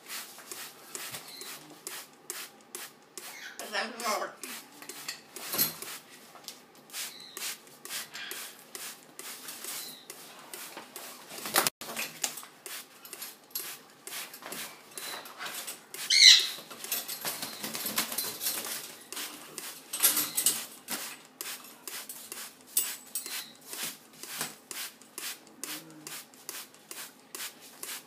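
Metal shower-curtain rings and rod clinking and rattling as macaws climb and flap on them, with feathers rustling. One short, loud cry about 16 seconds in.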